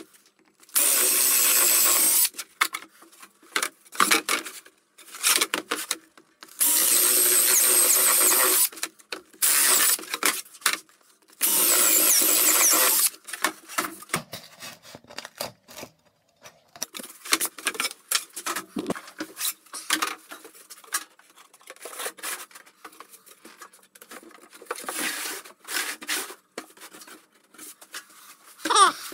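Cordless drill boring finger holes through thin plywood door panels with a hole saw, in three steady runs of about two seconds each in the first half. Quieter knocks and rubbing follow as the panels are handled.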